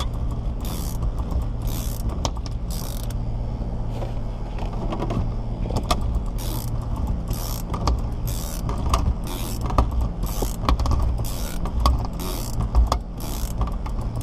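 Windshield cut-out wire being cranked through the urethane adhesive with a ratcheting winder: repeated short ratcheting strokes, about one and a half a second, with a pause of two seconds or so near the middle, over a steady low hum. The wire is cutting unevenly, tight in some places and loose in others, which the installer puts down to too little or poor glue.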